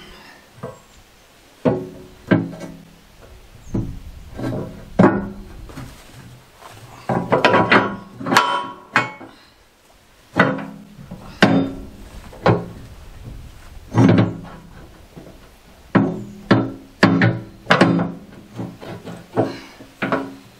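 Background music of plucked string notes, each note struck sharply and left to ring out, at an uneven pace.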